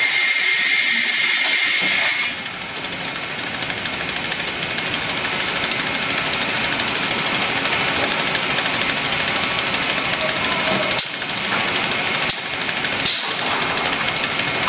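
Cameron Quick Rip rip-saw line running steadily: a dense, even machine noise of the saw and its feed conveyor. About two seconds in the tone changes and it gets slightly quieter, and there are two short dips near the end.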